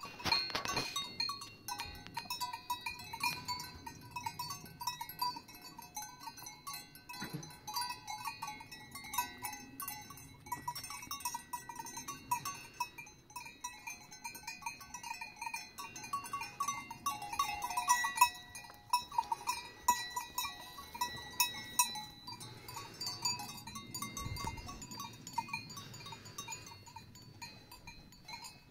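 Several livestock bells worn by grazing Haflinger and draft horses, clanking irregularly and ringing on as the animals move, with a busier spell of clanking about two-thirds of the way through.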